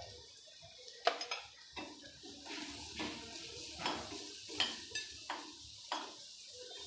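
Metal spoon clinking and scraping against a small metal kadhai as fennel seeds and coarse-ground coriander are stirred into a little hot oil. The clinks are short and irregular, about one every half second to a second.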